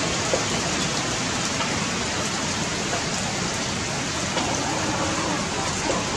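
Rain falling steadily, an even hiss that holds at one level throughout.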